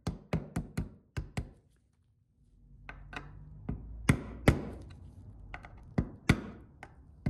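Mallet striking a steel punch to drive the coil spring of a classic Porsche Recaro seat hinge into place. A quick run of about six sharp taps comes first, then about a second's pause, then slower, spaced strikes.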